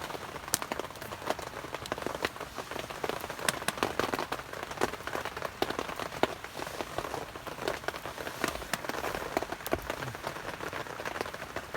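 Heavy rain falling: a steady hiss with many separate, sharp drop hits scattered through it.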